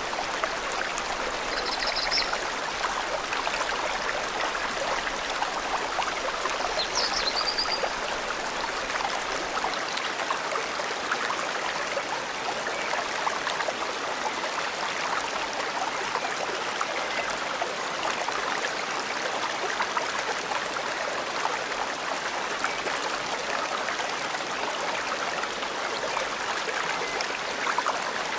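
Forest river flowing steadily, an even rushing of water, with two brief high bird chirps about 2 and 7 seconds in.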